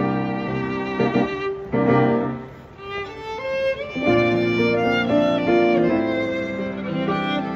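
Music with a violin playing a melody over sustained chords, dipping briefly in loudness about two and a half seconds in.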